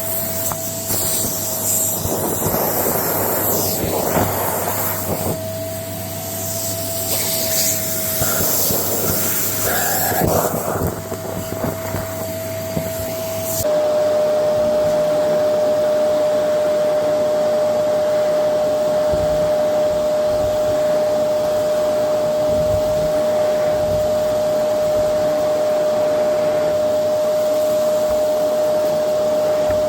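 Goblin Essentials cylinder bagless vacuum cleaner running, a steady motor whine over a rushing noise. For the first half the sound wavers and swells. About halfway through it changes abruptly to a steadier, slightly lower and louder hum.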